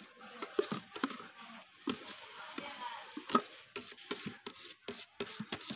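Metal spoon scraping and knocking around the inside of a plastic bucket, scooping its contents out into a steel pot, in irregular clicks and scrapes.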